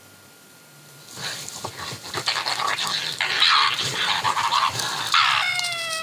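A badger and raccoon dogs fighting: harsh, rasping calls with scuffling start about a second in and go on for several seconds. Near the end comes a drawn-out whining cry that drops slightly in pitch and then holds steady.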